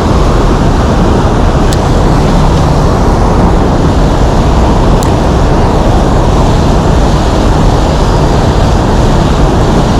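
Steady, loud rushing of a river's flowing water, with two faint clicks, one under two seconds in and one about halfway.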